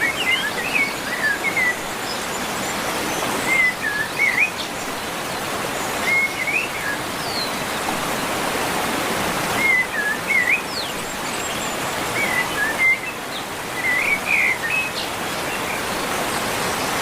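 Steady rush of flowing water, with a songbird singing short warbled phrases about every two to three seconds over it.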